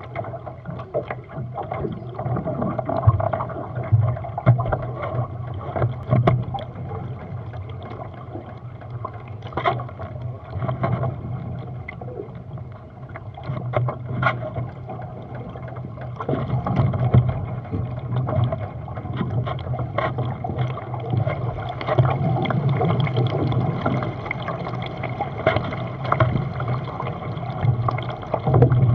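Water washing and splashing along a Hobie catamaran's hull as it sails slowly, with wind on the microphone. Scattered short knocks come through the hull, and the wash surges louder now and then.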